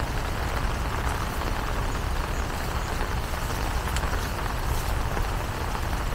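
Steady rain falling, an even constant wash with a low rumble underneath and scattered faint drop ticks.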